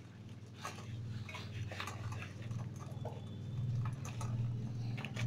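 Scattered light taps and clicks of a wooden cutting board and a plastic-wrapped stack of martabak wrappers being handled, over a steady low hum.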